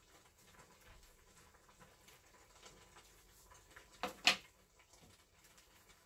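Faint, irregular crackle of ramyeon broth simmering in a stainless-steel saucepan, with two sharp clicks close together about four seconds in.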